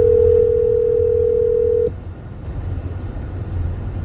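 Telephone ringback tone of an outgoing call: a steady tone that stops abruptly after about two seconds, over the low rumble of the car driving.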